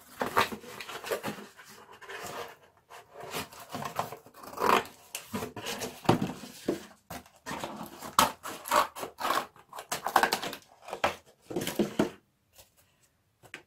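Corrugated cardboard being handled: irregular rubbing, scraping and crunching, with a short pause near the end.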